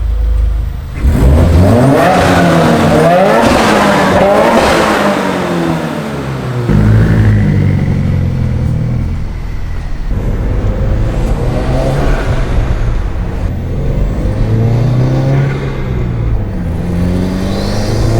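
Turbocharged Subaru flat-four with an aftermarket exhaust being revved several times, the engine note climbing and falling with each blip.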